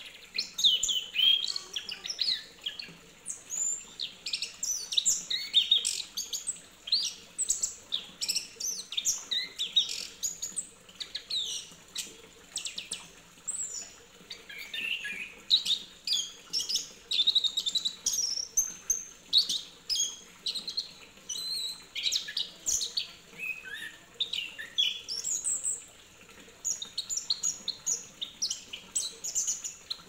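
Caged chestnut-capped thrush (anis kembang) singing a long, nearly unbroken run of quick, varied high chirps and whistled phrases.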